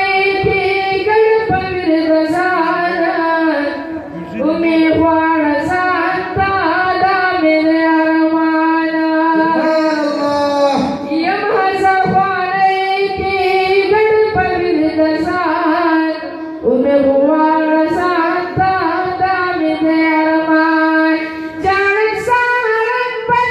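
A solo young man's high voice singing a devotional poem (naat) unaccompanied, in long melodic phrases with held notes and short breaks for breath.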